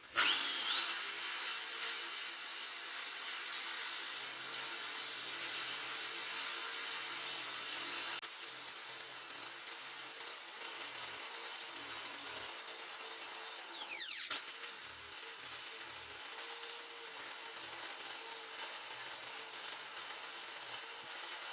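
Electric rotary power tool running at speed with a high whine. It spins up at the start, winds down and back up about two-thirds of the way through, then its pitch wavers until it cuts off at the end.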